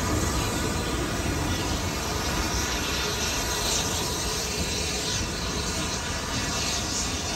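Merchant Navy class steam locomotive 35028 'Clan Line' running with its train of Pullman coaches: a steady hiss of steam over the rumble of wheels on rail.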